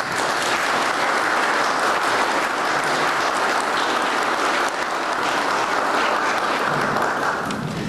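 Audience applauding, starting all at once and holding steady, then tailing off near the end.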